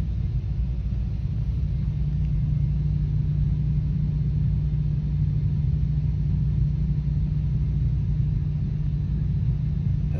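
A steady low rumble that runs unbroken throughout, with no distinct events.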